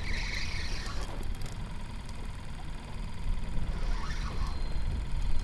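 Wind buffeting the microphone in a steady low rumble, with brief hissing bursts at the start and again about four seconds in.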